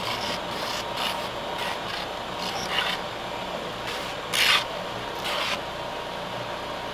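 Benchtop oscillating belt sander running steadily, with the edge of a fiberglassed wooden paddle blade pressed to the belt in short passes. Each pass gives a brief rasping grind; the strongest comes about halfway through. The belt is grinding off the excess cured fiberglass and epoxy that overhangs the blade's edge.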